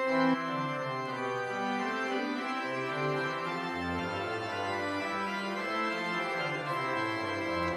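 Church organ playing slow, sustained chords, with a low pedal bass note entering about four seconds in: the closing voluntary after the dismissal.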